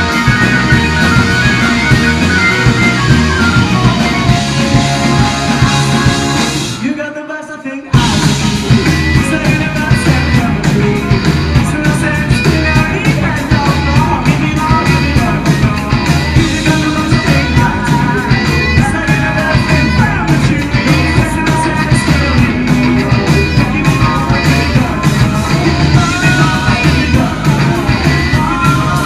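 A live blues-rock band playing. About seven seconds in, the music thins out into a short near-stop. About a second later the full band comes back in all at once and plays on steadily.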